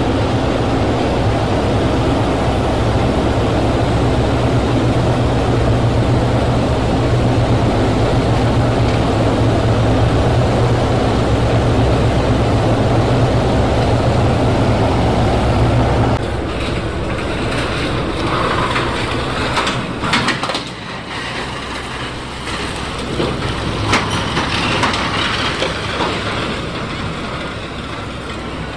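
Ship's diesel engine running with a steady heavy rumble that drops away about sixteen seconds in, followed by a rougher, quieter noise with scattered knocks and clatter.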